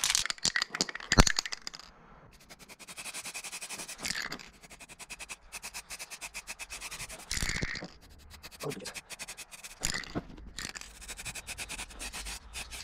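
Hand sanding body filler on a car panel: quick, even back-and-forth scraping strokes, with a sharp knock about a second in.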